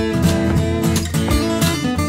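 Acoustic guitars playing an instrumental blues passage, picked notes over a chordal rhythm.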